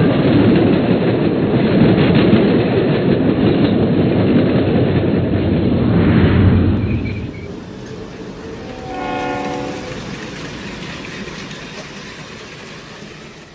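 A train rumbling and clattering loudly along, fading after about seven seconds, then a single horn blast about nine seconds in as the rumble dies away.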